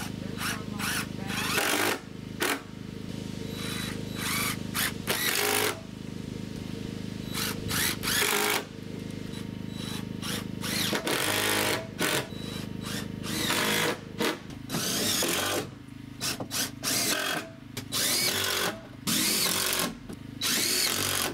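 Cordless drill driving screws into wood lumber, in a dozen or more short bursts of a second or less each, with pauses between, as baseboard beams are fastened down.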